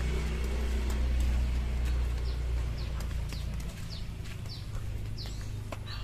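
A motor vehicle engine runs steadily with a low hum that drops away a little past halfway. From about two seconds in, a small bird gives repeated short, high, falling chirps, about two a second.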